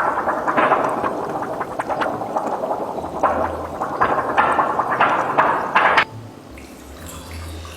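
Water gurgling and splashing in uneven surges, dropping to a much quieter trickle about six seconds in.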